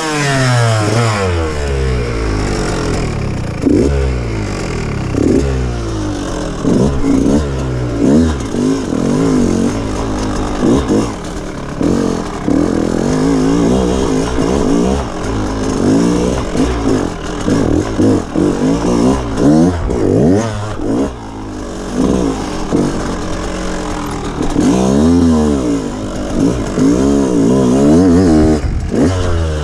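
Dirt bike engine revving up and dropping back again and again as it is ridden over a rough trail, its pitch rising and falling every second or two.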